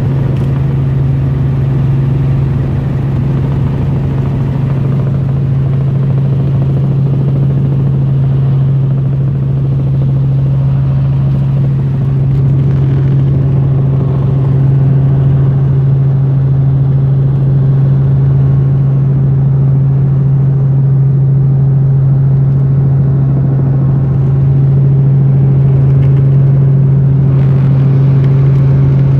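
Helicopter in flight: engines and rotor make a loud, steady drone with a strong constant low hum, growing slightly louder about halfway through and again near the end.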